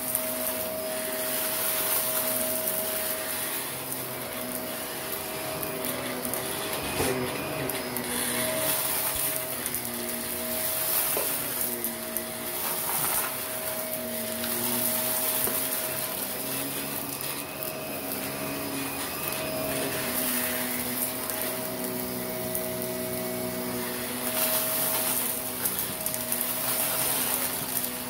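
Shark Navigator upright vacuum running over carpet, its motor whine steady while lower tones waver as the head is pushed back and forth. Fine dirt and grit crackle as the brush roll picks them up.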